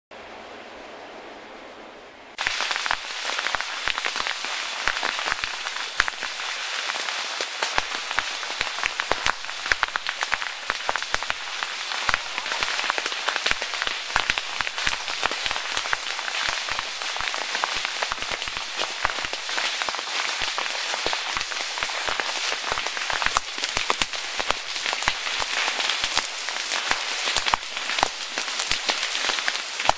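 Burning tall grass and scrub crackling and popping densely with many sharp snaps, starting suddenly about two seconds in after a faint hiss.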